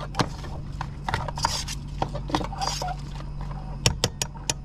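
A metal spoon stirring and scraping in a small metal camp pot, clinking against its sides, with a quick run of sharp clinks near the end, over a steady low hum.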